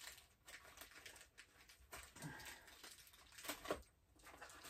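Faint handling noise: scattered light clicks and rustles, with two louder knocks about three and a half seconds in.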